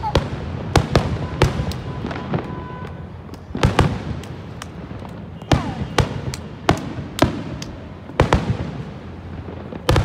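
Aerial firework shells bursting in a display: a string of sharp bangs, roughly one or two a second with short gaps, each followed by a rumbling echo.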